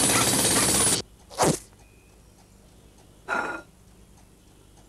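Cartoon sound effects. A loud, dense racket cuts off suddenly about a second in. A quick whistle-like swoosh falls steeply in pitch, and a short noisy plop comes about three and a half seconds in as a dog-food bowl lands on the table.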